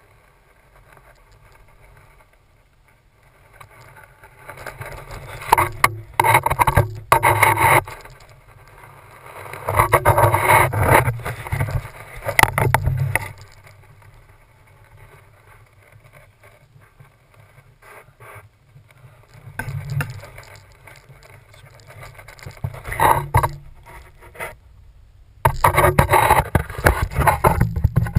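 Handling noise from a GoPro carried on foot through snow: irregular bursts of scraping and crunching from footsteps in snow and clothing or branches rubbing past the camera, with quieter spells between and a busier stretch near the end.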